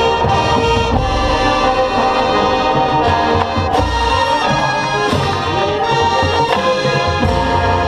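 High school marching band playing its competition show: brass and wind chords held over percussion, with several sharp crashes.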